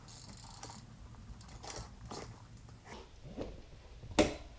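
A bicycle wheel being handled just after removal from the bike: a short scrape, scattered light clicks and rattles, and one sharp knock near the end.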